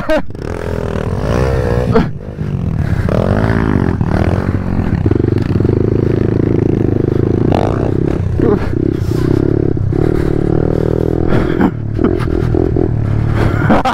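Pit bike engine revving up and dropping back as it rides a dirt track, then held at steady high revs with brief throttle cuts.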